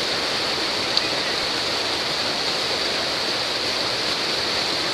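Steady rush of creek water tumbling over rocks at a small waterfall, with one faint click about a second in.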